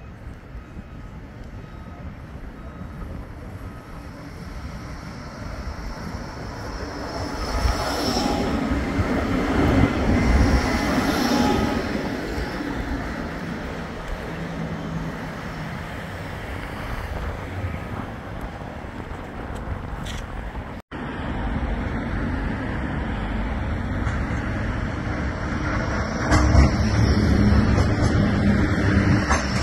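Bombardier Flexity 2 light-rail tram running along street-side track: wheels rumbling on the rails with a hum, growing louder as it nears about eight to twelve seconds in, then easing. After a sudden cut, a second tram passes close by, louder still.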